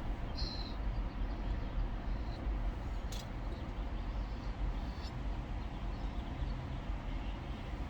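Steady low rumble of a car idling, heard from inside the cabin, with a few faint brief clicks from eating.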